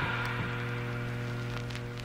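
The tail of the outro music: one held low note with its overtones, fading slowly after the rest of the track has stopped.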